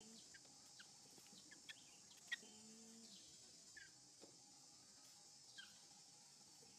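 Near silence: faint outdoor ambience with a steady high hiss and short, high, falling chirps every second or so. One sharp click comes a little after two seconds in.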